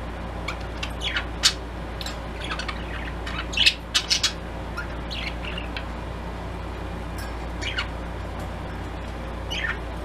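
Pet budgies chirping: scattered short, high chirps and squawks, with a louder burst of several chirps about four seconds in.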